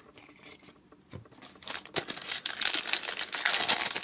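Foil trading-card pack wrapper crinkling loudly as it is torn open, starting about a second and a half in, after a quieter stretch of light card handling.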